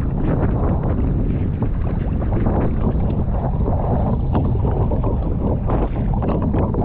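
Strong wind buffeting the microphone out on the open sea, with irregular water splashes and slaps throughout.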